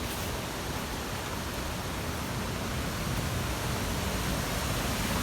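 Steady rush of falling water from a waterfall, growing slightly louder near the end.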